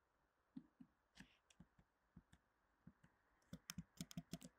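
Faint computer keyboard keystrokes and clicks, a few scattered at first, then a quick run of about ten near the end.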